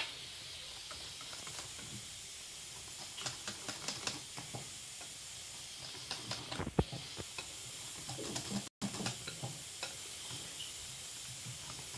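Wire whisk stirring cake batter in a ceramic bowl: a steady soft swishing with many light clicks of the wires against the bowl, and one sharper knock a little past the middle. The batter is thickening as flour is worked in.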